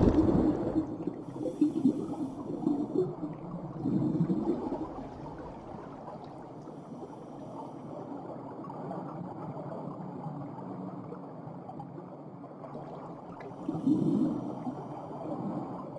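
Muffled underwater ambience with bursts of gurgling air bubbles escaping from a diving helmet, one about four seconds in and another near the end. It is loudest at the start and settles into a low, dull wash.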